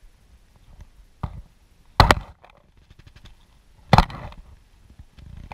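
Sharp knocks from jigging a spinning rod from a kayak as it is snapped upward: a faint one about a second in, then two loud ones about two seconds apart.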